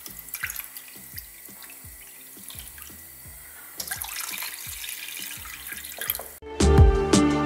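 White wine and then water poured from a glass into a pan of breadcrumb-stuffed artichokes, with the water pour louder and splashier about four seconds in. Loud background music with a beat starts near the end.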